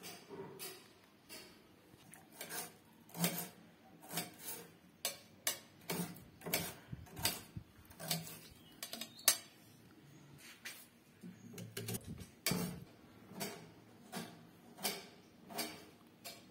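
Irregular clicks and light clinks of steel kitchenware being handled, about one or two a second.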